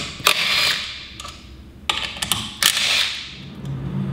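Hand work on outboard carburetors being pulled free: sharp metal clicks and knocks with two short scraping rattles as the parts are worked loose.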